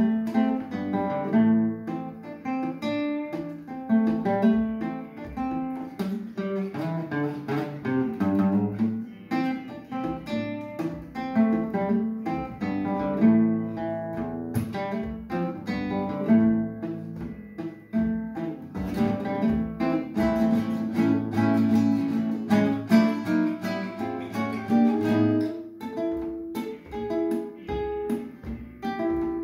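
Solo classical guitar with nylon strings, played fingerstyle: a continuous flow of plucked melody notes over bass notes.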